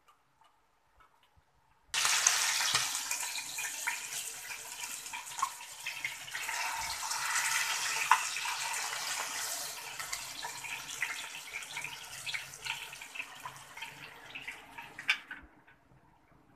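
Hot oil sizzling and crackling in a frying pan, starting suddenly about two seconds in, slowly easing off, and cutting off abruptly near the end.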